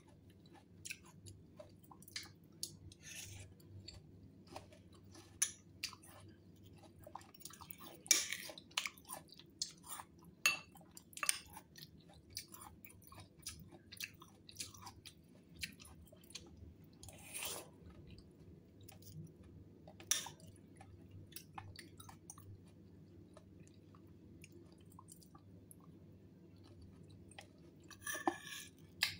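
A person chewing mouthfuls of fruit salad, cherries and soft fruit chunks in a creamy dressing, with irregular small wet clicks and smacks over a faint steady hum. Near the end a spoon clinks in the bowl.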